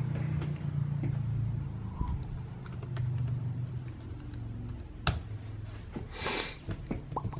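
Light, scattered key clicks from typing on a MacBook Air's laptop keyboard, with a low hum under the first few seconds and a short hiss near the end.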